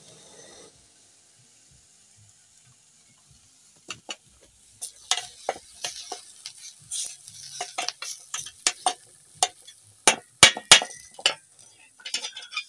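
Metal spoon stirring chopped greens in a metal pot, scraping and clicking against the pot's sides in quick, uneven strokes that start about four seconds in.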